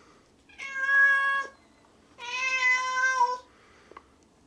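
A cat yowling twice, each a long wail held at a steady pitch for about a second: a warning call between two cats meeting face to face.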